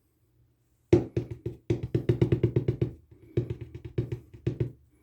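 A rapid run of sharp, hollow taps or knocks, about five a second, starting about a second in and stopping just before the end.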